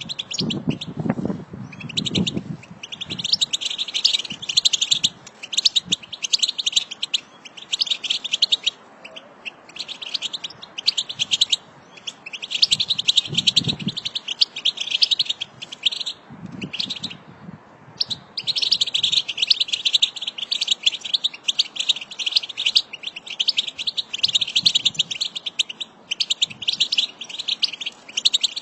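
A flock of European goldfinches twittering: rapid, high chirping chatter in bursts a few seconds long with short pauses between them. A few low thumps sound in the first three seconds, and again about 14 and 17 seconds in.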